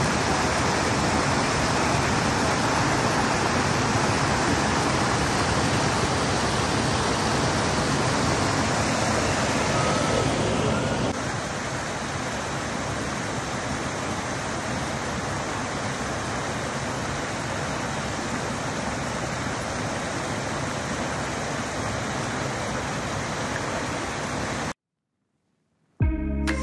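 Steady rushing of a shallow river, a little quieter after about eleven seconds, cutting to a second of silence near the end.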